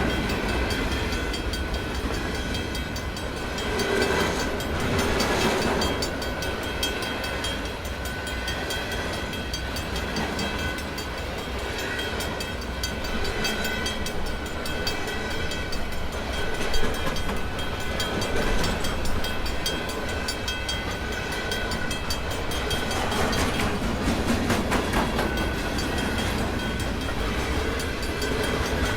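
CN freight train rolling past, its cars and wheels rumbling steadily on the rails with faint high ringing tones. One sharp knock comes about 17 seconds in.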